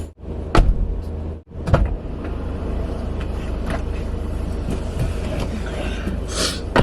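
Steady low hum of a car heard from inside the cabin, with two sharp thumps within the first two seconds.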